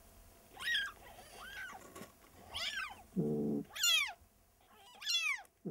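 Cat mewing from inside a cardboard box: about five short, high-pitched mews that rise and fall, with a shorter, deeper call about three seconds in.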